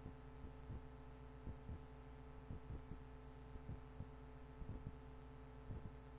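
Faint steady electrical hum from the recording, with soft, irregular low knocks about twice a second.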